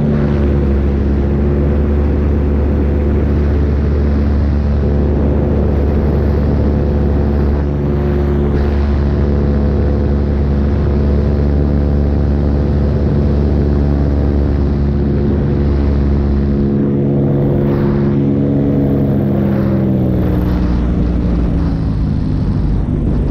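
Paramotor engine and propeller running steadily in flight, a constant droning note. The engine note drops in pitch about twenty seconds in.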